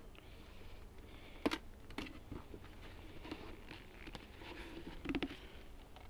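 Handling of wooden beehive parts while the hive is being opened: light scraping and rustling with a few sharp knocks, one about a second and a half in, another at two seconds, and a quick double knock near the end.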